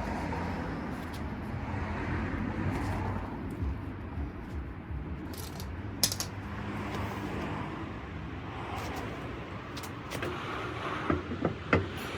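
A steady low hum with a few sharp metallic clinks, one about halfway through and several close together near the end, as of hand tools and wheel hardware being handled.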